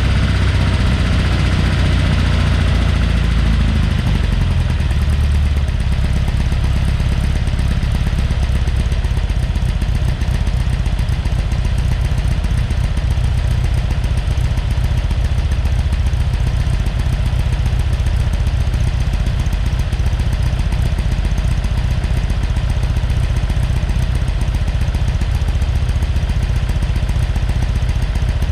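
Freshly rebuilt Porsche 912 air-cooled flat-four on Solex carburettors, running steadily; it eases down a little about five seconds in and then holds an even idle.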